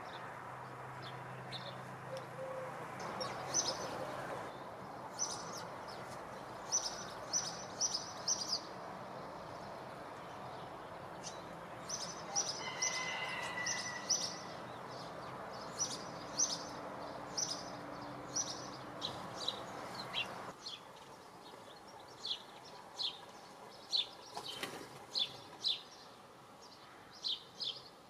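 Small songbirds giving short, high chirps, often in quick runs of several, over a steady outdoor background noise that drops away abruptly about two-thirds of the way through.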